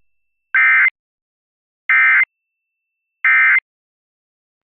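Emergency Alert System end-of-message signal: three short bursts of SAME digital data tones, each about 0.4 s long and about 1.3 s apart, marking the end of the broadcast alert.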